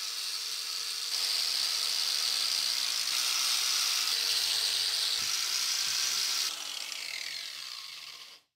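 Electric angle grinder running with an abrasive disc, sanding corrosion off an aluminium stern-drive bearing retainer housing. It is louder from about a second in, then drops and dies away near the end.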